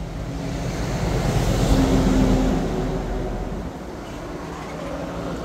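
A motor vehicle passing by, its engine and road noise swelling to a peak about two seconds in and then fading.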